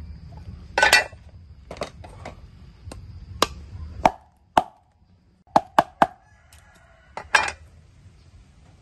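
Cleaver knocking and chopping on a wooden chopping board as a round green fruit is cut through: about a dozen sharp knocks, irregularly spaced, some with a short hollow ring from the board.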